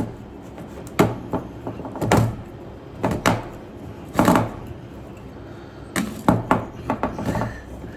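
Metal knocks and scrapes from a can's lid being worked and pried at with a hand can opener, about seven irregular strikes roughly a second apart.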